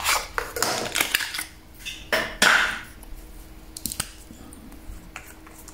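Small paperboard cosmetics box being handled and a liquid contour bottle slid out of it: a run of short rustles and scrapes, with a longer scraping swish about two and a half seconds in. A single sharp click comes about four seconds in as the bottle is handled.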